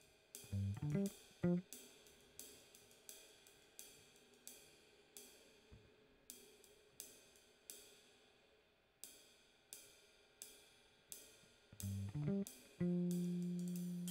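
Drum kit played: a steady pattern of cymbal strikes, about two a second, with tom hits about half a second in and again near the end. A low note then sounds and rings on.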